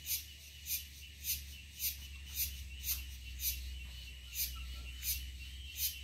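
An insect calling with short, sharp, high pulses at a steady rhythm of a bit under two a second, over a faint continuous high drone.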